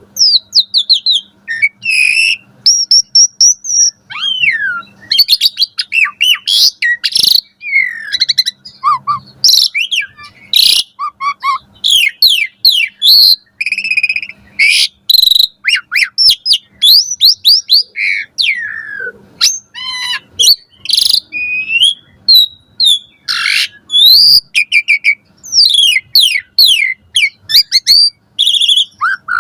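Asian pied myna (jalak suren) singing continuously: a dense, varied song of whistles, quick falling sweeps, chattering and harsh notes following one another with barely a pause.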